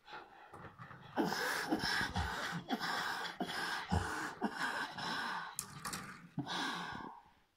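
Soft orange slime squished and kneaded by hand, close to the microphone: a run of irregular wet squelching and crackling from about a second in until just before the end.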